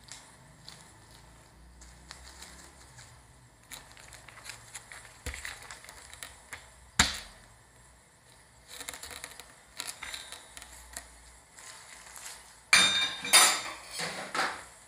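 A metal spatula scraping and cutting through the sealed plastic film lid of a jelly-drink cup, with crackling of the plastic, a single sharp tap about seven seconds in, and a louder burst of crackling near the end.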